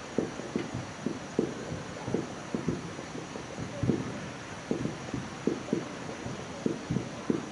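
Fireworks shells bursting in a rapid, irregular run of booms, about two or three a second.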